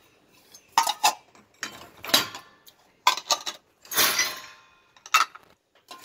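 Steel bowls and dishes clinking against each other and the dishwasher's wire rack as they are lifted out of the upper basket. About eight sharp clinks, one near the middle ringing on a little longer.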